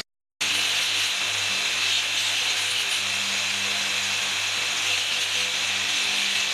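Electric drum sander running at a steady hum, with the hiss of bamboo being sanded against its spinning sleeve. It starts a moment in, after a brief gap.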